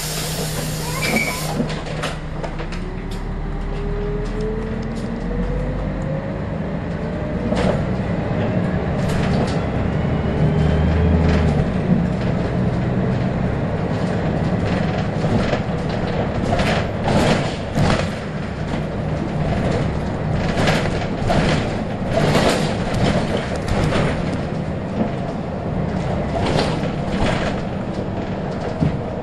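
Scania L113CRL single-deck bus heard from inside the passenger saloon on the move: its diesel engine running under way, with a rising whine a few seconds in as it pulls away. Frequent rattles and knocks come from the body and fittings over the road surface.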